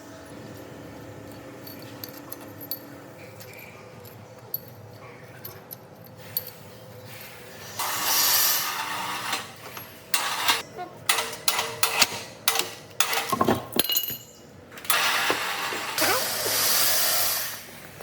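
Workshop work on metal parts: a low steady hum, then loud rushing bursts of noise with a quick run of sharp metallic clanks and clicks between them.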